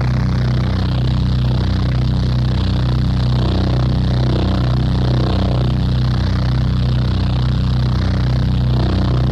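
Crossover metal band playing a low, droning riff on heavily distorted guitar and bass, a steady wall of sound from a 1990s demo tape recording.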